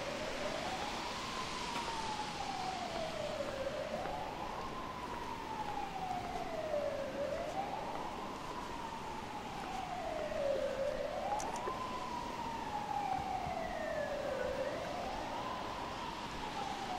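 Emergency vehicle siren wailing over steady rain hiss. Its pitch rises quickly and falls slowly, repeating about every three and a half seconds.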